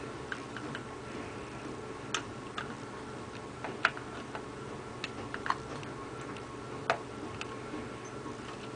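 Irregular light clicks and taps of a laser being worked by hand into a plastic cannon housing, over a steady low hum.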